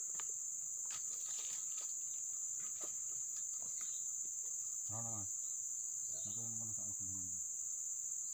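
Insects droning in a steady, high, even tone. Faint distant voices come in briefly about five and six seconds in.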